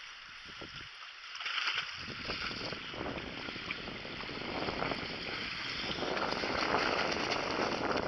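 Water splashing and sloshing in a shallow, stony creek as it is waded across, starting about a second and a half in and growing louder toward the end.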